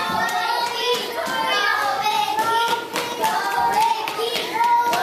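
Many children's voices shouting and calling out at once in a room during an active game, with sharp claps and smacks mixed in.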